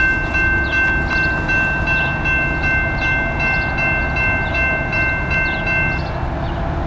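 Freight train cars rolling past close by with a steady low rumble. Over it a steady high-pitched chord of several tones sounds together and cuts off about six seconds in.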